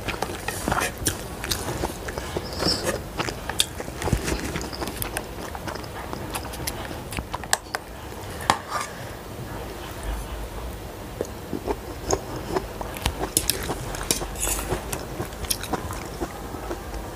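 Close-miked chewing and mouth sounds of someone eating instant noodles, a steady run of short wet clicks.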